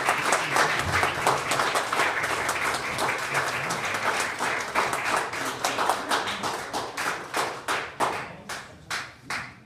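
Audience applauding; the applause thins out and dies away, ending in a few separate claps.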